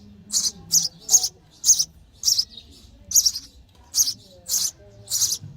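Sparrow nestlings begging for food with short, high chirps, repeated about twice a second.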